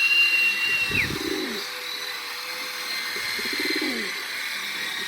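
Homing pigeons cooing in a loft, with a low call repeating every couple of seconds. A high thin tone in the first second ends with a quick drop.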